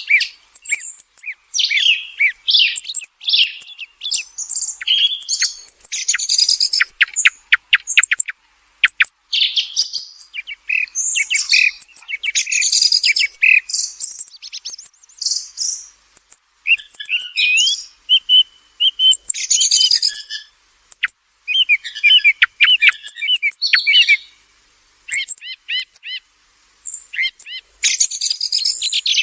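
Song thrush singing: a string of loud, varied phrases of whistles, chatters and sharp notes, each separated by a short pause, with a fast run of clicking notes about seven seconds in.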